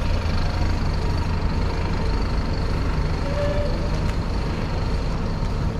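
Heavy vehicle engine running steadily with a low, even rumble.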